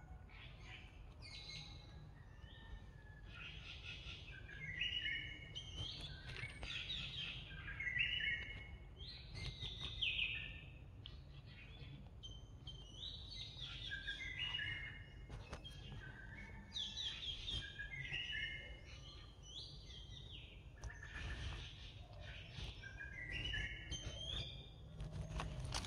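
Birds singing: repeated short phrases of quick notes that step down in pitch, coming every few seconds over a low steady background rumble.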